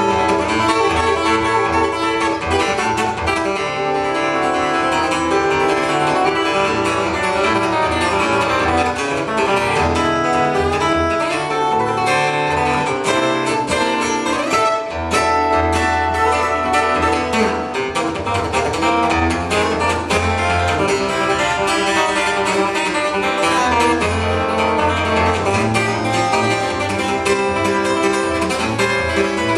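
Solo fingerstyle acoustic guitar playing a fast country tune in the chicken-pickin style, quick picked melody notes over a running bass line without a break.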